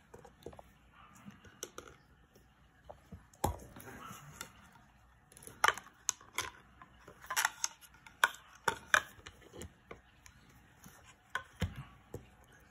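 Irregular clicks and knocks of a stepper motor and a sheet-metal mounting bracket being handled and fitted together by hand, the sharpest cluster in the middle.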